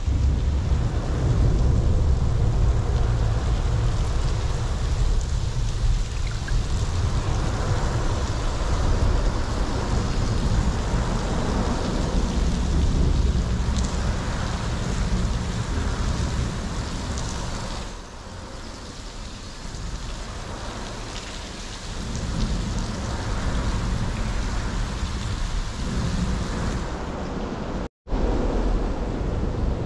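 Steady heavy rain falling, with a low rumble underneath. It eases a little about two-thirds through and cuts out for a moment near the end.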